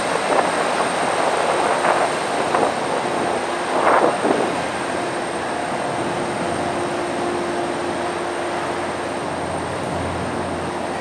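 Car ferry under way, pulling away from its landing: the steady noise of its engines and moving water, with a steady hum coming in about six seconds in and a few brief squeaks and knocks in the first four seconds.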